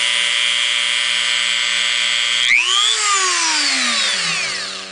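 Dremel rotary tool, used as the spindle of a homemade CNC mill, running with a steady high-pitched whine. About two and a half seconds in it is switched off and winds down, the whine falling in pitch and fading over about two seconds.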